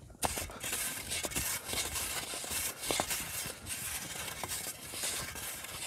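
A small snow shovel scraping and scooping packed snow, a steady run of irregular crunching strokes.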